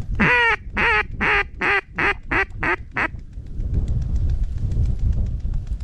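A loud run of about seven mallard-style quacks in the descending hen pattern: one long first quack, then shorter, quicker ones stepping down in pitch, over about three seconds. A low rumble of wind follows.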